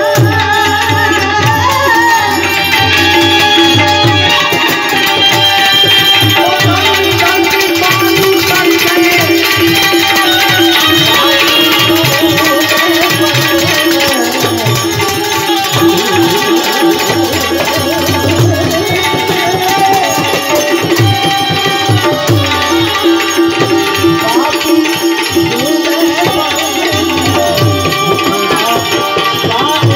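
Indian folk music played on benjo (bulbul tarang) and tabla: a wavering benjo melody over a held drone note, with the tabla beating a continuous rhythm of low, booming bass strokes.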